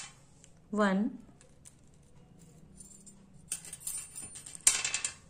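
A small die thrown onto a table, rattling from about three and a half seconds in and ending in a quick run of sharp clicks near the end.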